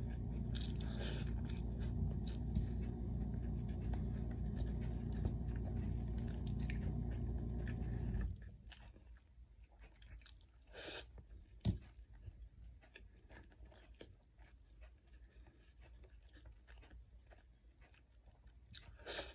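A person chewing and eating rice by hand, with wet mouth clicks and smacks. A steady low hum runs beneath it and cuts off suddenly about eight seconds in, and there is one sharp knock a few seconds later.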